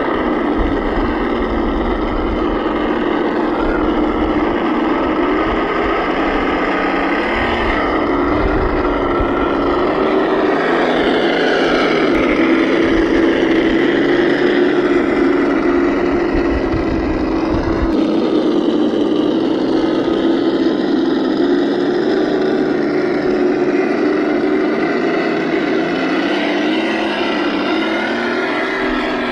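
ESS-One sound module on an RC crawler playing a simulated V8 engine sound, running steadily with its pitch rising and falling gently as the throttle changes. A low rumble sits under it for the first half.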